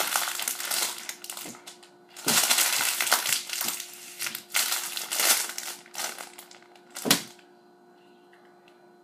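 Thin plastic LEGO polybag crinkling as it is twisted and pulled by hand, with a pause about two seconds in. It gives way with one loud sharp crack about seven seconds in, after which it is quiet.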